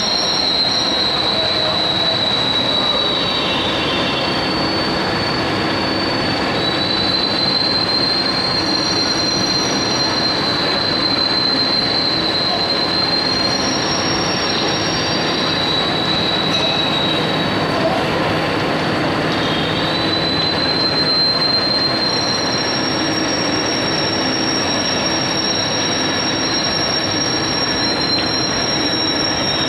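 CNC spiral bevel gear cutting machine generating a bevel gear: its face-mill cutter head cutting through the gear blank under a spray of cutting fluid. There is a steady rushing, grinding noise with high, slightly wavering metal whines that fade in and out every few seconds.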